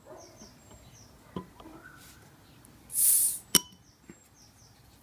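Beer bottle's crown cap prised off with a metal bottle opener: a light knock of the opener on the cap, then about three seconds in a short hiss of escaping gas followed by a sharp metallic click as the cap comes off.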